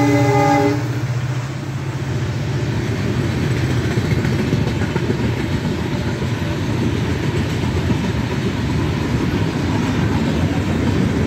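A diesel locomotive's horn chord cuts off under a second in, followed by the steady rumble of LHB passenger coaches rolling past on the rails.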